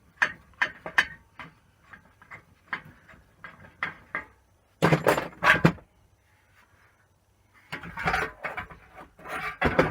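Metal clanks and knocks as a combi boiler's loose fittings are undone and its parts handled. There is a louder cluster of knocks about five seconds in, a short lull, then more clatter near the end.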